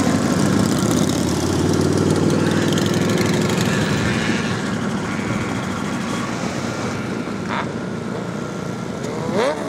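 Motorcycle engines running as bikes ride past, loudest in the first few seconds and easing off after the middle. A short rising rev comes near the end.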